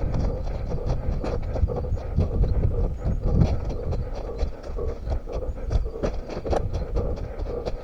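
An orienteer running on foot: quick, regular footfalls, with a steady low rumble from movement against the head-mounted microphone.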